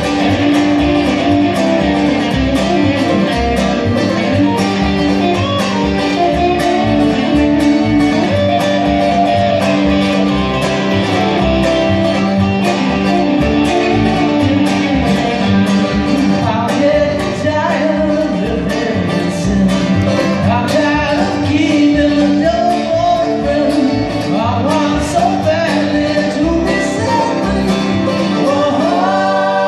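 Live country band playing: an electric guitar picked chicken-pickin' style in quick snapped notes over upright bass, in a steady rhythm.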